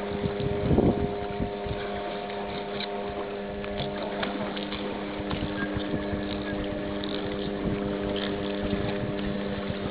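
Motorboat engine running steadily, a hum of several steady tones, with a louder thump about a second in and scattered faint clicks.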